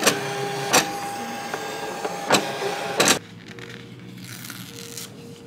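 Electric craft cutting machine running as it feeds and cuts a printed sticker sheet: a steady motor whine with four sharp clicks, which stops about three seconds in. After that, faint handling of the paper sheet.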